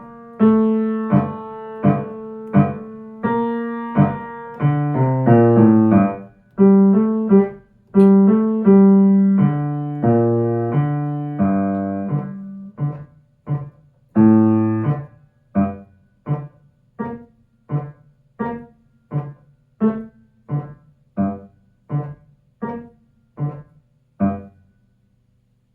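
Piano playing the secondo (lower) part of a four-hands duet on its own: evenly repeated detached notes, with a busier stretch of lower notes in the middle. The last third thins to single short notes about one and a half a second, which stop shortly before the end.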